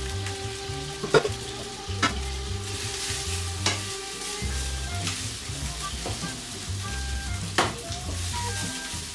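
Sliced hotdogs sizzling in oil in a frying pan, with a few sharp clicks of a spoon against a pan or bowl.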